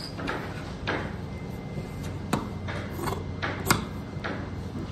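Large tailor's shears snipping through shirt cloth laid on a cutting table: a series of short, sharp, irregular snips, about two a second, one louder than the rest near the end.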